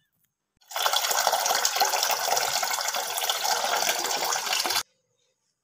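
Tap water pouring in a steady stream into a stainless steel pot, filling it with water to be heated. It starts under a second in and cuts off suddenly after about four seconds.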